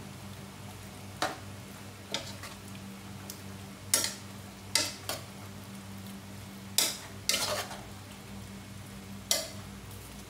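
A spoon stirring gizzards and pechay in broth, knocking and scraping against the speckled coated pot at irregular intervals, about eight strokes, over a steady low hum.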